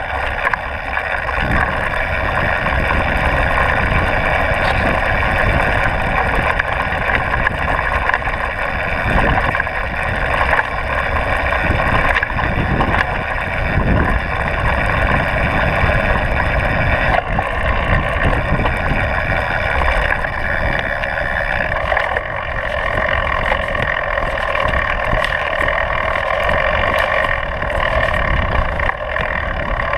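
Downhill mountain bike ridden fast over a dirt trail, heard from a camera mounted on the frame: continuous wind rush and tyre rumble, with frequent knocks and jolts from the bike over bumps.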